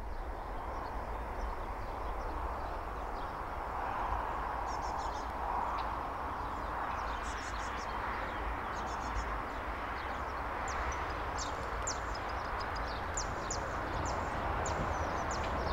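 Outdoor field ambience: a steady low rumble and hiss with small birds chirping in short, high, quick notes, more often in the second half.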